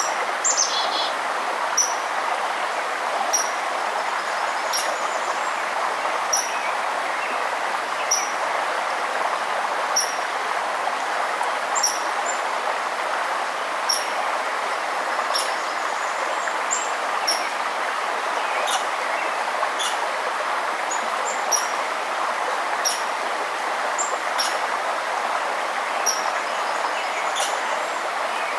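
Steady rush of a forest river, with a bird repeating a short high chirp about every one and a half seconds and other faint chirps above it.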